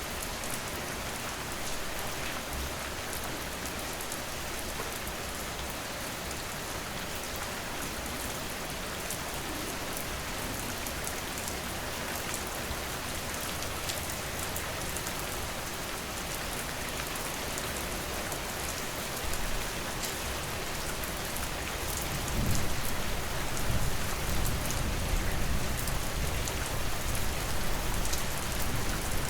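Steady rain falling, a dense hiss with many small drop ticks. About two-thirds of the way through, a low rumble comes in under it and the sound grows louder.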